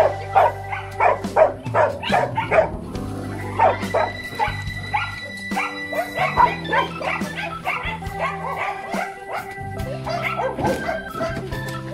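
Dogs barking and yipping in quick, repeated bursts, thickest in the first few seconds and again midway, over background music with held notes.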